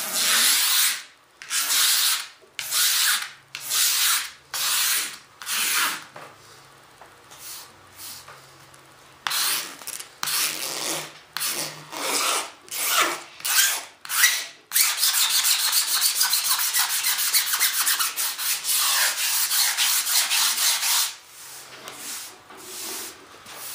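Single-edge razor blade scraping cured fiberglass resin off a balsa wing panel. It starts with separate strokes about once a second, then about two-thirds of the way through runs into several seconds of fast, continuous scraping.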